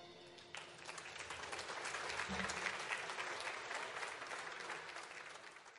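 Applause from a crowd, starting abruptly about half a second in and dying away near the end.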